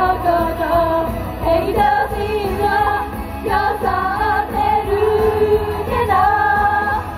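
Japanese idol group of young women singing a pop song together into microphones over a backing track, amplified through the stage PA.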